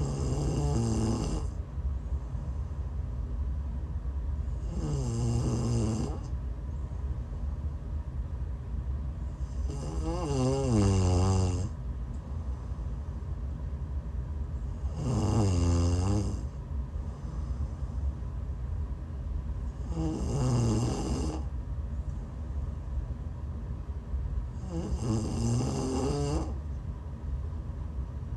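A sleeping woman who is sick snoring regularly, one snore about every five seconds, six in all. Each snore lasts about a second, a rough pitched rattle with a breathy hiss.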